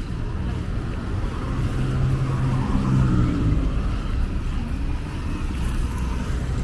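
A car driving past on the street, its engine and tyre noise swelling to a peak about halfway through and then easing off, over a steady traffic hum.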